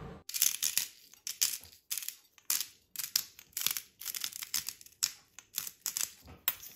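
Hand-turned spice mill grinding seasoning: a run of short crunchy grinding strokes, about three a second, irregular.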